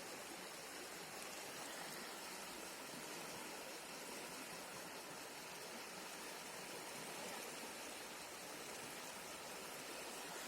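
River water rushing, a steady, unbroken hiss.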